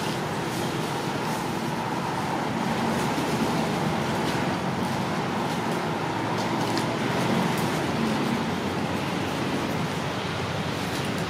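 Steady outdoor background noise, an even hiss with a low hum under it and a few faint ticks.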